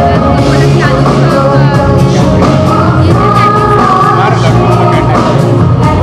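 Women singing a song into microphones, with music behind them.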